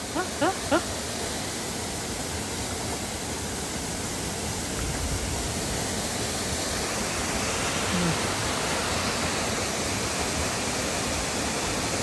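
Steady rushing noise of a small waterfall pouring into a rock pool, getting a little louder partway through.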